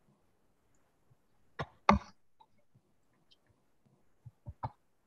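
A short cough in two quick bursts, the second louder, followed near the end by a few faint clicks.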